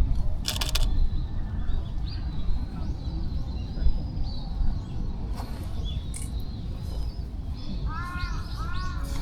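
Small birds chirping thinly over a low rumble, with a crow cawing about four times near the end.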